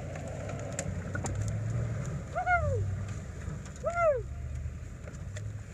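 Toyota Land Cruiser 100 Series engine running low and steady as the truck crawls slowly over logging slash, with scattered light snaps. Two short high tones, each rising then falling, cut through about a second and a half apart, two and a half and four seconds in.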